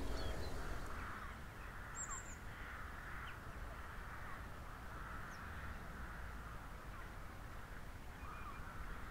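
Faint outdoor ambience: distant birds calling again and again over a low rumble.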